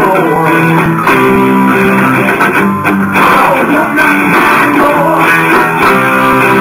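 Live rock band playing: electric guitars strumming a chord riff over bass guitar and drums, loud and steady.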